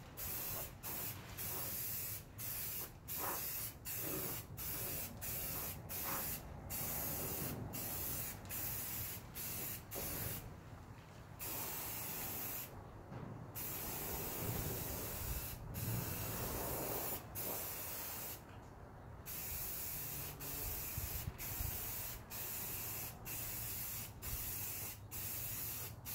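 Rattle can of etch primer spraying in many short bursts: a hiss broken by frequent brief gaps and three longer pauses.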